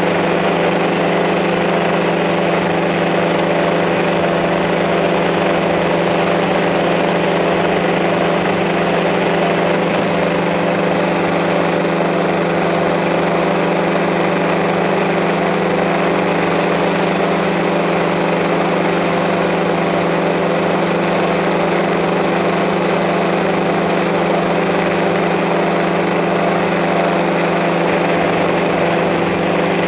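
Quadcopter drone's motors and propellers humming steadily at a constant pitch, heard through the drone's own camera microphone.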